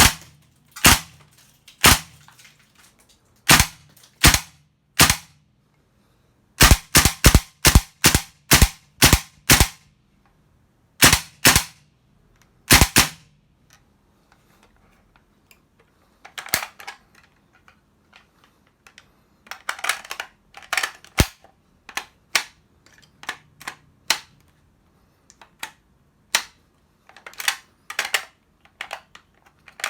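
WE SVD Dragunov gas-blowback airsoft rifle giving a series of sharp cracks, including a quick run of about three a second. Later come softer, clustered clacks of the rifle being handled.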